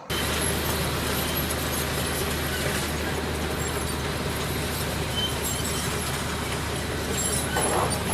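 Diesel engine of heavy construction machinery running steadily, a low engine hum under a wash of mechanical noise, starting suddenly.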